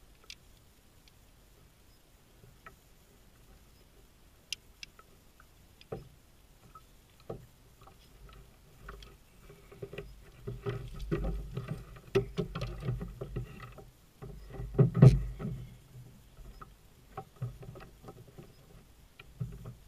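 Handling noises of a striped bass and a landing net in a kayak as the fish is unhooked: scattered sharp clicks, then a stretch of rustling and knocks from about ten seconds in, with the loudest thump about fifteen seconds in.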